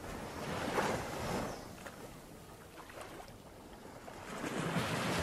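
Sea waves washing: a rushing noise that swells about a second in, dies down, and swells again near the end.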